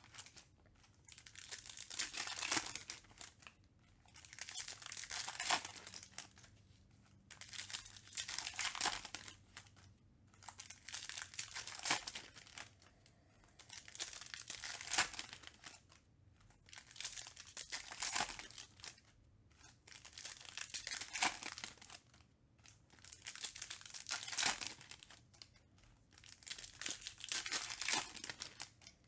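Foil wrappers of Topps Stadium Club Chrome baseball card packs crinkling and tearing as they are ripped open one after another, in repeated bursts about every three seconds.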